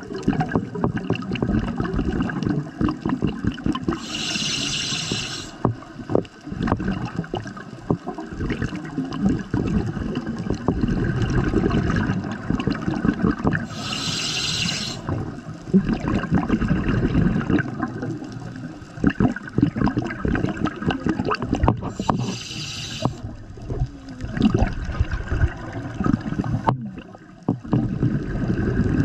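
Scuba diver breathing on a regulator underwater: three short inhalation hisses about nine seconds apart, with long stretches of exhaled bubbles gurgling out of the regulator between them.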